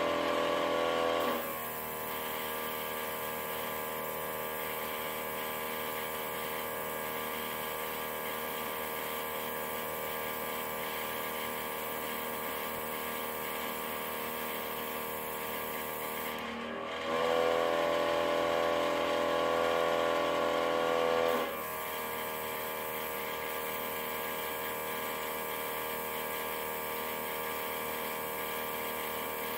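Small airbrush compressor running with a steady hum, which twice gets louder and more strongly pitched: for the first second and again for about four seconds a little past the middle.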